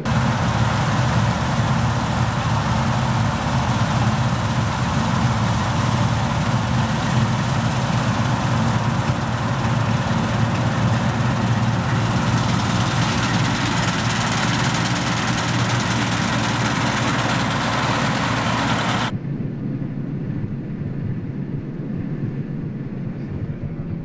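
Claas Lexion combine harvester running under load while cutting and threshing wheat: a steady, dense machine noise. Just past two-thirds in it cuts abruptly to a quieter, muffled run of the machine as heard from inside the cab.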